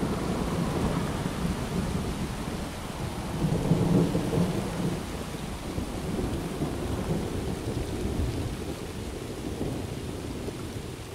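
Rolling thunder rumbling over steady rain, swelling to its loudest about four seconds in, then slowly dying away.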